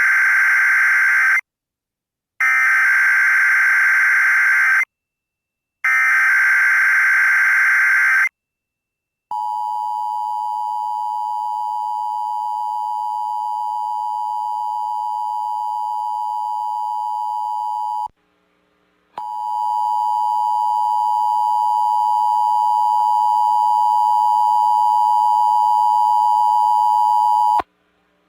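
Emergency Alert System test: three bursts of SAME header data, a harsh buzzing screech, followed by the steady two-tone EAS attention signal. The attention signal runs about nine seconds, cuts out for a second, then starts again for about eight more seconds.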